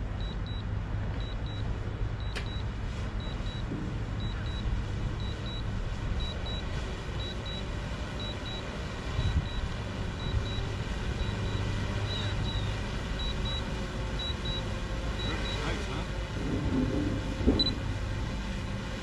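Steady low rumble of road traffic, with a faint high electronic beep repeating in quick pairs about once a second.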